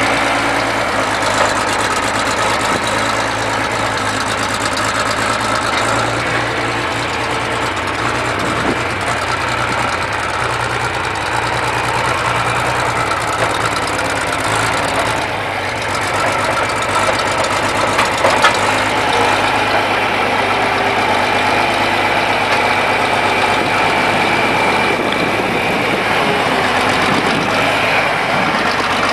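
John Deere 4010 tractor's 4.9 L six-cylinder engine running steadily at idle.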